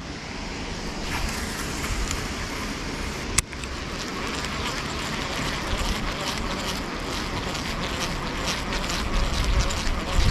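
Baitcasting reel being wound in after a cast, a fast fine ticking from its gears through the second half, over a steady rushing of wind and water. There is one sharp click about three and a half seconds in.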